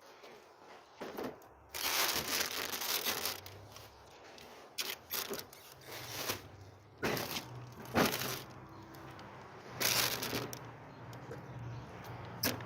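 Plastic bags and food packaging rustling and crinkling as a dumpster's contents are rummaged through, with a handful of sharp knocks and cracks as items are moved and set down.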